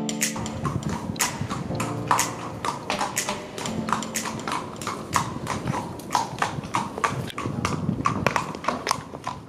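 Horse's hooves clip-clopping on cobblestones, a steady run of hoof strikes at about four a second.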